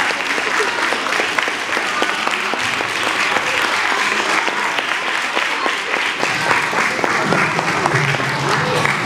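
Audience applauding, a dense steady patter of many hand claps, with voices mixed in that grow more noticeable about six seconds in.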